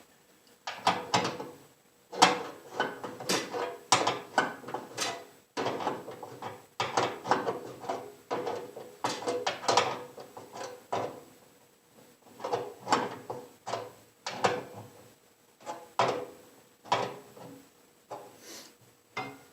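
Irregular clanks, rattles and scrapes of a steel smokestack and its bolts being handled and fitted against the side of a pellet grill, in bursts with a few short pauses.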